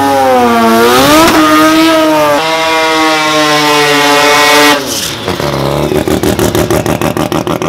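Race car engine at high revs: the pitch swings up, steps twice as if through gear changes, then holds steady. Near five seconds the throttle closes and the engine drops to lower revs with a fast, rattling run of exhaust pops.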